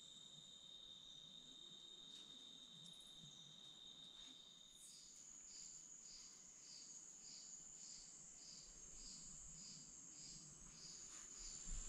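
Faint night insects calling: a steady high trill stops about five seconds in, and a higher trill with a pulsing chirp about two and a half times a second takes over. A few faint knocks near the end.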